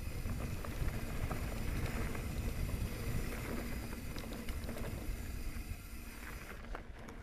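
Mountain bike rolling downhill on a dry dirt trail: tyres running over dirt and small stones, with a steady low rumble and scattered clicks and rattles from the bike.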